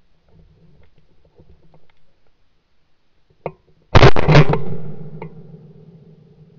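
A single hunting gunshot about four seconds in, fired at a forest grouse, very loud and sudden, dying away through the forest over about a second. Light rustling before it, and a small sharp crack just before the shot.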